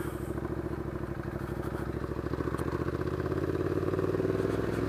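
Ducati Diavel's L-twin engine running at low revs as the motorcycle rides through a turn and on up the street. The exhaust pulses are steady and grow gradually louder as it picks up speed.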